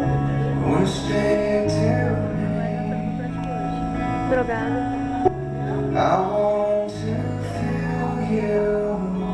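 Music: a song with guitar over sustained bass notes and a voice singing.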